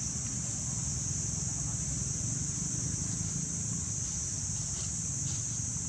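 Steady high-pitched drone of an insect chorus over a low, even rumble, with a few faint rustles of dry leaves between about four and five seconds in.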